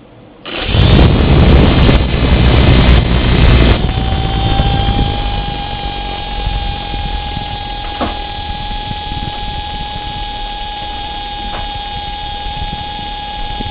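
The small electric motor driving the top rotor of a Litehawk Pro coaxial RC helicopter spins up about half a second in with a loud rushing noise, then from about four seconds settles into a steady high-pitched whine. The owner takes the whine as the sign that this motor is faulty and underpowered, so the helicopter spins clockwise instead of taking off.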